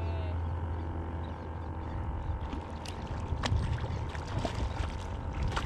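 Water lapping and sloshing against a stand-up paddleboard, over a steady low rumble, with a few sharp ticks in the second half.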